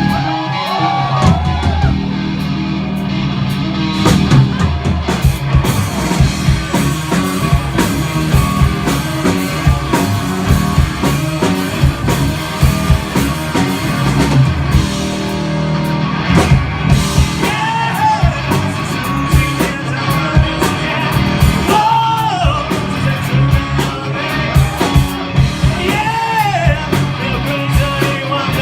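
Rock band playing live: electric guitar, bass and drum kit, with a singer coming in during the second half.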